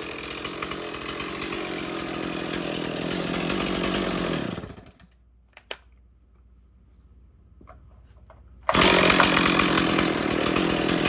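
Stihl 026 two-stroke chainsaw running, then shut off by its kill switch: the engine winds down and stops a little under five seconds in. A couple of clicks sound in the quiet, then the saw starts again and runs on.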